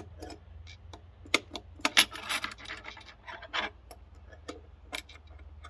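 Irregular metal clicks and clinks of the kit's small tools fitting onto a bolt head and its nut as the bolt is tightened into the Dobsonian telescope base, with the busiest clatter about two seconds in.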